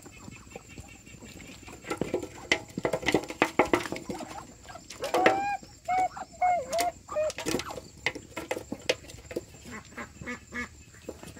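Domestic fowl calling: short, arched calls repeated in quick runs, loudest about halfway through, with scattered sharp knocks and clatter.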